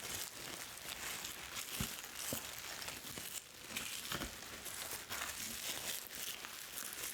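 Plastic bubble wrap crinkling as it is handled, a continuous irregular crackle with a few sharper clicks.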